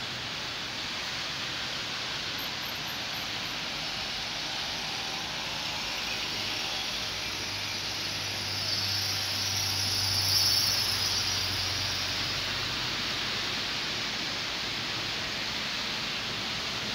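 Steady hiss of rain falling on a wet street. About halfway through, a vehicle passes on the wet road, its tyre hiss swelling and fading over a few seconds.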